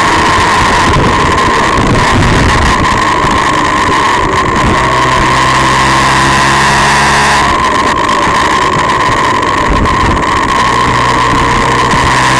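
Motorcycle engine running while riding, under loud wind rush on the microphone. The engine note changes pitch a few times as the throttle and gears change through the bends.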